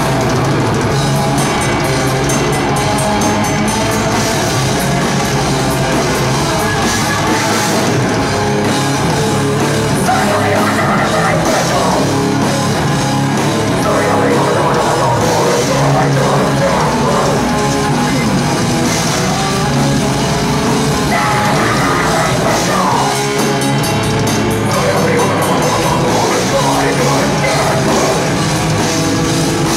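A heavy metal band playing live at full volume: distorted electric guitars, bass and a drum kit, without a break.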